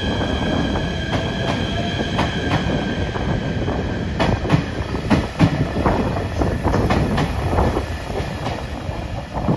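JR Shikoku 8000 series electric limited express train pulling out of the station and running past at close range: a steady rumble of the cars, with wheels clicking over the rail joints, the clicks coming thicker about four seconds in.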